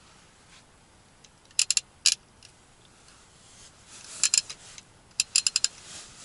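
Sharp metallic clicks in quick clusters: three about one and a half seconds in and one more just after, then a cluster around four seconds and five rapid ones just past five seconds.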